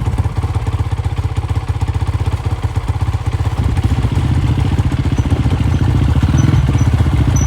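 Off-road motorcycle engine running at low revs, a steady rapid chugging that picks up a little about halfway through.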